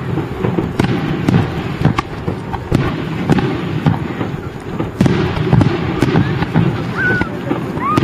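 Aerial fireworks shells launching and bursting in quick succession: a continuous run of deep booms and sharp cracks, with a couple of short whistles near the end.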